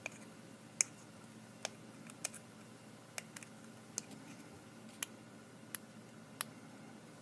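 A dozen or so faint, sharp clicks at irregular intervals as fingernails pick at a small sticker to peel it off its backing.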